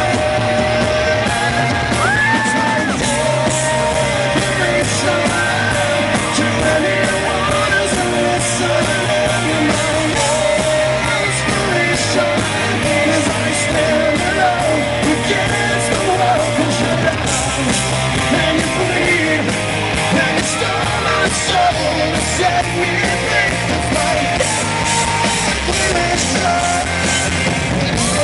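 Live rock band playing: a male lead vocalist singing over electric guitar, bass and drums with steady cymbal hits, recorded loud from the crowd.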